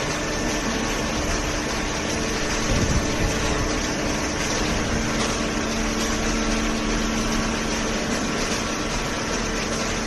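Hydraulic carton baler and its feed conveyor running: a steady machine hum and rush, with a lower hum tone joining about halfway through and a brief thump about three seconds in.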